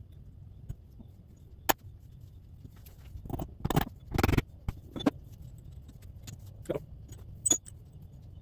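Metal parts of a hydrostatic transaxle clinking and knocking together as they are handled and fitted back together: a sharp click about two seconds in, a busy bout of clatter near the middle, then a few single knocks.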